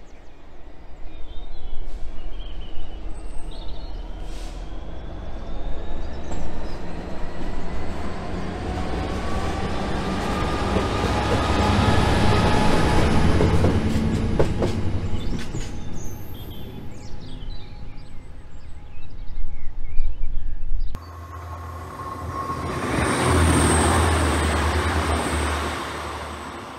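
Freightliner Class 66 diesel locomotive approaching and passing close by, its two-stroke engine note rising, loudest about halfway through. After a sudden change near the end, a TransPennine Express Class 185 diesel multiple unit passes.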